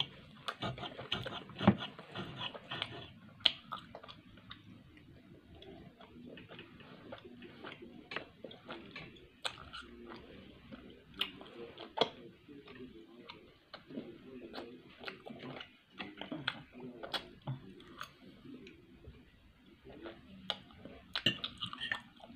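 Close-up chewing and mouth sounds from someone eating steak, with scattered sharp clicks as a knife and fork scrape and tap against a plate.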